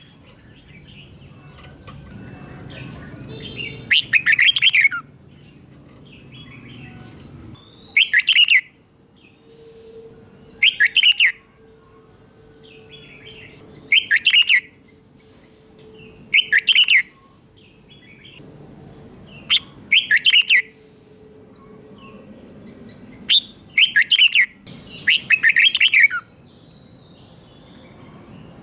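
Red-whiskered bulbul singing loud, short warbling phrases about every three seconds, in the doubled song style, with fainter chirps between phrases.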